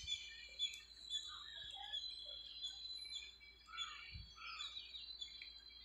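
Small birds chirping and calling, many short high chirps and twitters overlapping, with a soft low thump about four seconds in.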